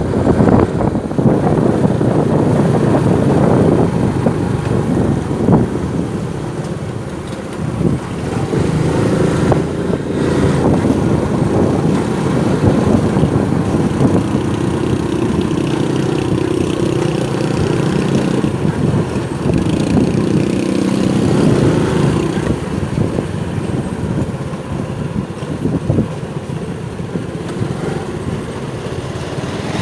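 Motorcycle engine running during a ride through street traffic, with steady road and wind rumble; the engine note holds fairly even through the middle.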